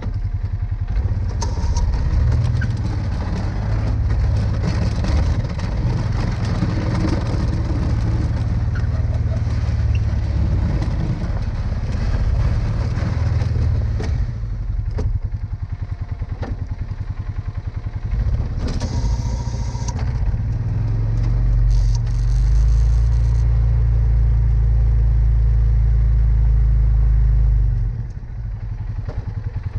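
Polaris Sportsman 570 ATV's single-cylinder engine running under load while plowing snow, with a few sharp knocks along the way. Late on, the engine holds a steady, even note for about six seconds, then drops off near the end.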